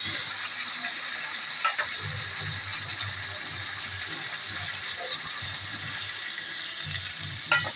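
Chicken frying in hot oil in a pan for kosha, a steady sizzle with a couple of light clicks, one about two seconds in and one near the end.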